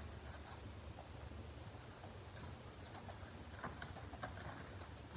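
Faint, scattered light clicks and rustles of hands handling cross-stitch projects, over a low steady hum.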